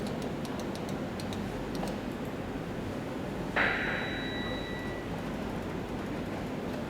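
A single sharp metallic ding about halfway through, ringing out and fading over about a second and a half, over a steady background hiss with a few faint ticks early on.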